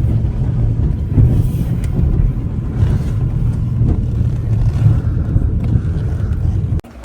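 Car driving, a steady low rumble of engine and road noise heard from inside the cabin, which cuts off abruptly near the end.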